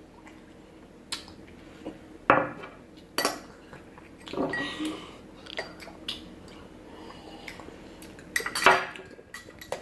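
Scattered clinks and knocks of tableware being handled, a few seconds apart, with a sharper knock a couple of seconds in and another cluster near the end.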